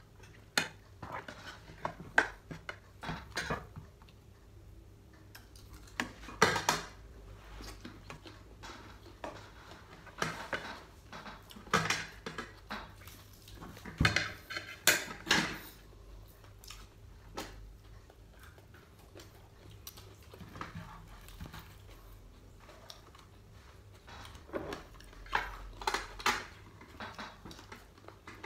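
Fork and knife clinking and scraping against a plate and a skillet while food is cut and eaten, in irregular short clicks that come in clusters.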